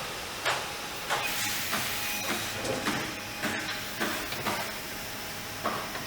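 Repeated sharp knocks, roughly two a second, over a steady hiss.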